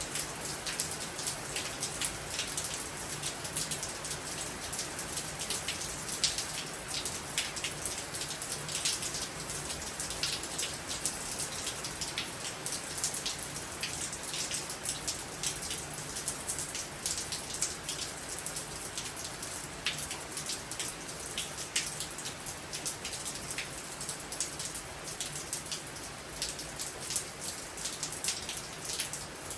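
Steady rain pouring down, a dense irregular patter of drops striking a hard surface, with a faint low hum underneath.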